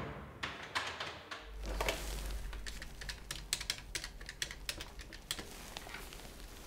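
The echo of a heavy steel cell door slam fades out at the start. Then a computer keyboard is typed on in irregular runs of key clicks.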